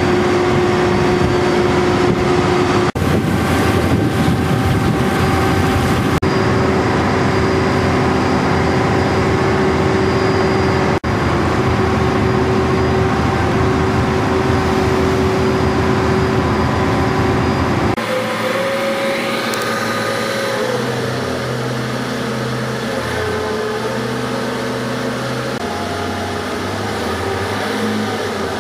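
Car ferry's engines droning steadily under a loud rush of noise on deck. About two-thirds of the way through the sound turns quieter, with a lower engine note that shifts up and down as the ferry comes in to the landing ramp.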